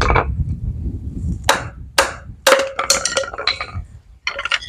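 A hammer knocking on wooden chair parts being taken apart: a run of about eight sharp, irregular strikes, some with a brief metallic ring.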